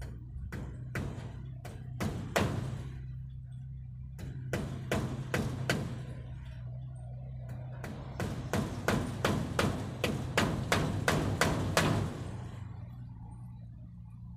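Hammer blows driving nails into a wooden roof frame, in runs of strikes, the quickest run coming in the second half at about three blows a second.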